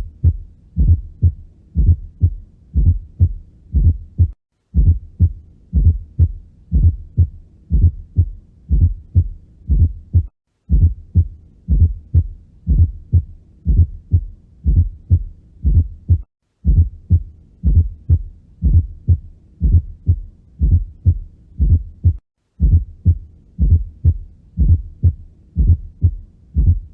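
Recorded heart sounds with a fourth heart sound (S4): an extra low thud just before each first heart sound, giving a galloping three-beat rhythm, a sign of the atria pushing blood into a stiff ventricle. The recording breaks off briefly and restarts about every six seconds.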